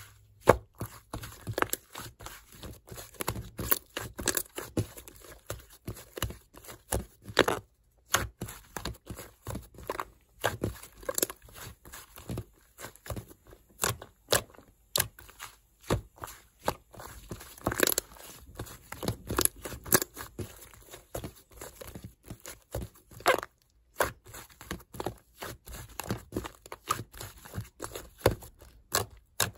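Fluffy clay slime being squished, stretched and pressed by hand, giving dense, irregular crackles and sticky pops.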